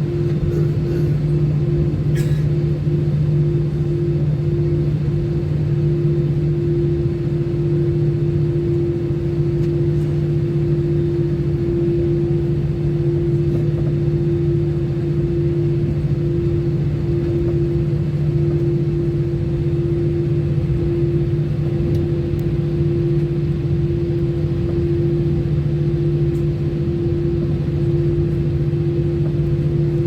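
Steady cabin drone of an Airbus A320 on the ground before takeoff, heard from inside the cabin: a constant rushing rumble with two steady low hums.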